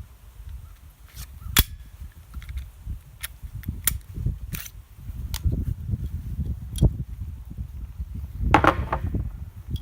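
Gunshots: about half a dozen sharp reports at uneven intervals, the loudest about a second and a half in, over a steady low rumble.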